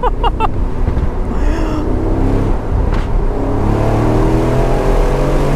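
Aston Martin Vantage Roadster's twin-turbo V8 on a lift of the throttle, its exhaust giving a sharp pop about three seconds in. The engine note then climbs steadily as it pulls again.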